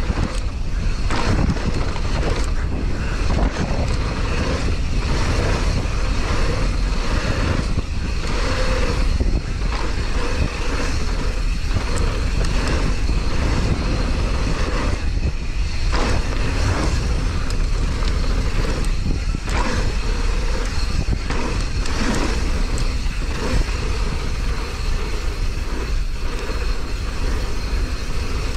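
Mountain bike ridden fast down a rough trail: steady wind rumble on the microphone and tyre noise, with frequent clatter and knocks as the bike rattles over bumps.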